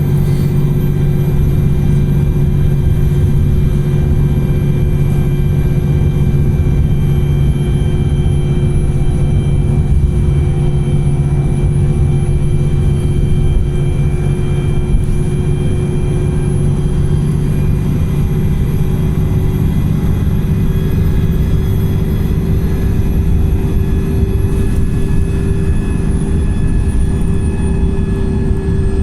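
Wright Pulsar single-deck bus running steadily under way, a loud, constant engine and drivetrain rumble with a faint high whine that drifts slowly up and down in pitch.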